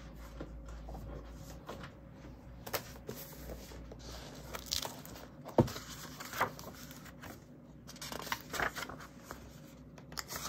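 Pages of a small paper notebook being flipped through and handled: a run of short, irregular rustles and soft taps, the sharpest about five and a half seconds in.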